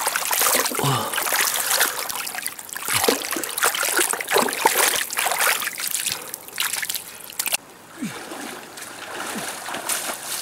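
Water splashing and sloshing in shallow water, with many irregular sharp splashes. It drops suddenly quieter about seven and a half seconds in, and lighter splashing goes on.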